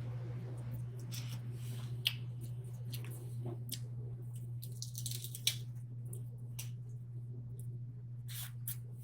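Close-miked mukbang eating sounds: scattered wet clicks, squishes and crackles of crab and potatoes being handled and chewed, with a longer crackly stretch about halfway through. A steady low hum runs underneath.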